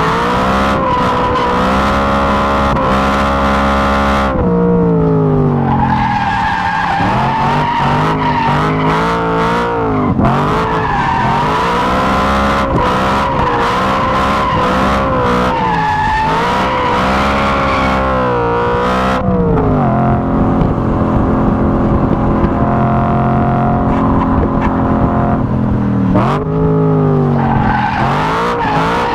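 BMW E92 M3's V8 pulling hard through the revs and dropping sharply on braking and downshifts, over and over, under hard track driving. Its tyres squeal steadily through long stretches as the car slides through corners.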